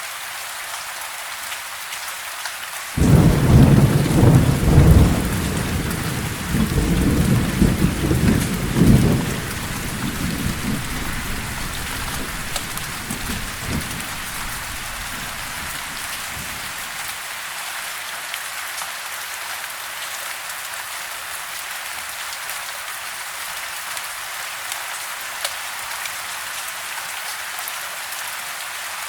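Steady rain falling, an even hiss, with a long roll of thunder that starts about three seconds in, rumbles loudly for several seconds and fades away by about halfway.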